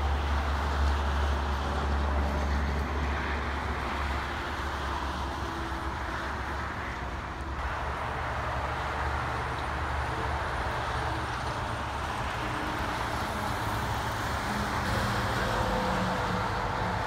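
Highway traffic going by: steady tyre and road noise from cars and heavy dump trucks, with the low drone of the trucks' diesel engines. The drone is strongest in the first few seconds and comes up again near the end as another dump truck passes.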